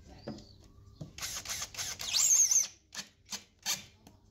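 Scraping or rubbing against a surface: a stretch of continuous scraping with a brief squeak in the middle, then three short scraping strokes.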